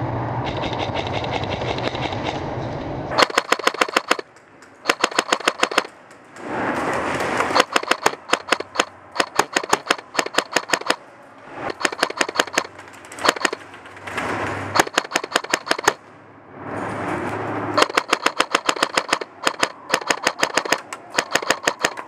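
Airsoft M4 rifle firing strings of rapid shots in repeated bursts, starting about three seconds in, with short pauses between bursts. Before the first burst, a steady hum and noise.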